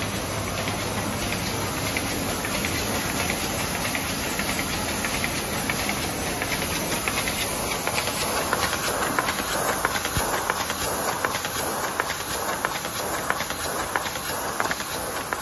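Carton folder gluer running: a steady mechanical hiss of belts and rollers with a dense, rapid fine clatter, which grows denser and slightly louder about halfway in as cardboard blanks feed through.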